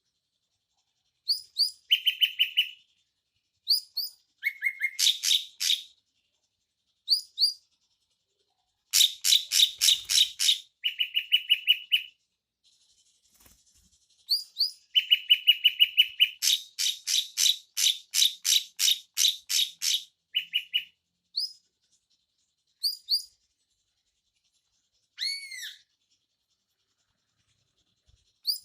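Drongos calling: bursts of rapid, repeated chattering notes, several a second, broken by short silences, with a few sharp arching whistles near the end.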